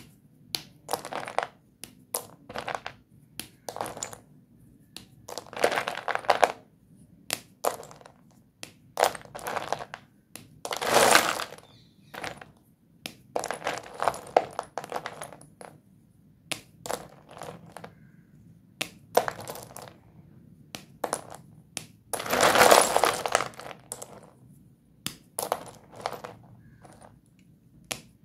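Doms white dustless chalk sticks clinking and rattling against each other as hands stir a heap of them, with sharp snaps and crunches of sticks broken between the fingers. Irregular clicks, with two longer rattling spells when a handful is churned through the pile.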